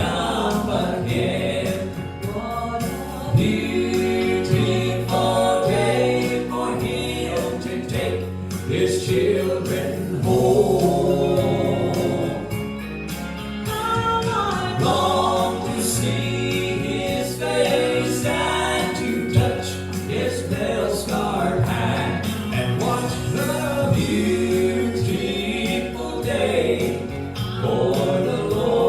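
Southern gospel trio singing in harmony over instrumental accompaniment with a steady bass line.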